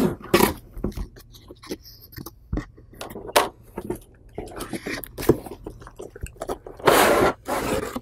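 Cardboard box being cut open and unpacked: sharp clicks and scrapes of a knife and cardboard flaps, then a louder rustling scrape near the end as the moulded plastic packing tray is pulled out.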